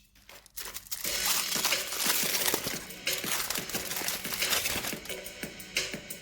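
Candy or chocolate-bar wrapper crinkling and crackling as it is torn open and handled, starting about a second in.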